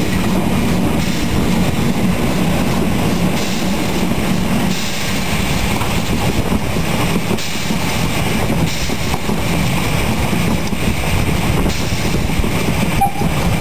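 Narrow-gauge steam locomotive 99 6101 running along the line, heard close up from the engine: a steady, loud rumble and clatter of wheels on rail and running gear.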